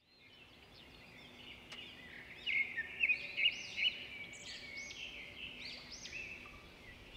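Birds singing and calling: many overlapping short arched chirps that fade in at the start and are loudest between about two and a half and four seconds in.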